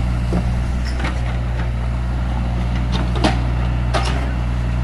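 Tatsuo JP80-8 excavator's diesel engine running steadily under load while the bucket digs soil. There are a few sharp knocks and clanks from the digging, the loudest a little over three seconds in.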